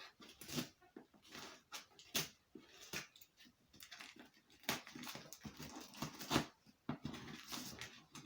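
Crinkling, rustling and tearing of a plastic mailer parcel being opened by hand, in short irregular bursts with a few sharper rips.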